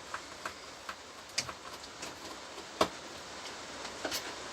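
Rain lashing on the workshop roof as a steady hiss, with scattered light clicks and a louder knock nearly three seconds in as the portable monitor's case is worked open.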